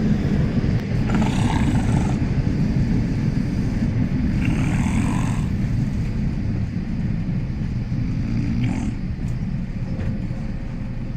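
A person snoring aboard a moving suburban electric commuter train: three snores about three and a half seconds apart over the train's steady low rumble.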